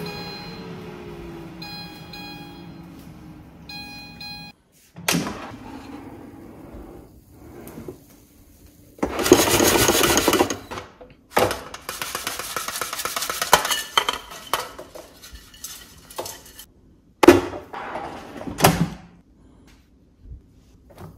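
Philips Airfryer XXL beeping three times, about two seconds apart, as its fan winds down in a slowly falling hum: the timer has run out and cooking is finished. Then the cooked fries rattle and scrape loudly in the air fryer's mesh basket, and near the end a wooden cutting board is knocked down twice onto the stone counter.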